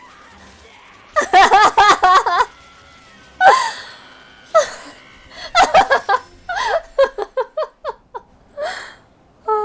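Laughter in several bursts of quick, short pulses, with a sharp gasp-like cry a little before the middle.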